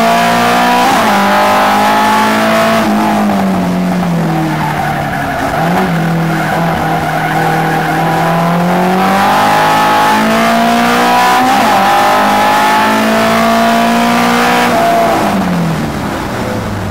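Nissan Sunny race car's L18 four-cylinder engine heard from inside the cabin at full racing load. The engine note climbs, dips at quick gear changes about a second in and again near twelve seconds, and falls away under braking for corners, with tyre noise through the turns. Near the end it falls off again.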